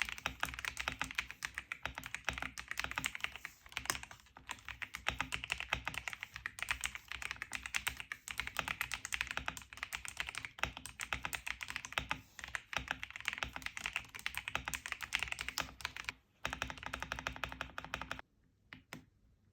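Magegee SKY81 mechanical keyboard being typed on rapidly, a dense clatter of keystrokes. There is a brief pause about sixteen seconds in, and the typing stops near the end after a few last separate key presses.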